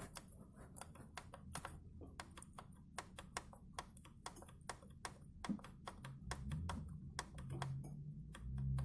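Faint, irregular light clicks, a few a second, from a Harley-Davidson Evolution plastic crankcase breather gear being worked by hand. Set against the aftermarket iron breather gear, whose clacking in mesh was the engine's knock, the plastic gear only clicks lightly.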